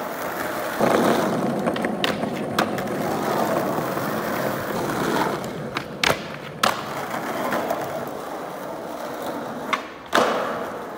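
Skateboard wheels rolling over rough concrete, broken by several sharp clacks of the board popping and landing, the busiest about six seconds in, where the trucks grind along a concrete ledge.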